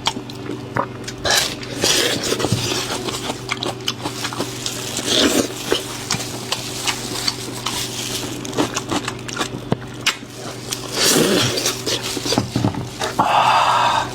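Eating sounds: chewing of meat with repeated clicks and scrapes of chopsticks and tableware, over a steady low hum. A brief higher-pitched sound comes near the end.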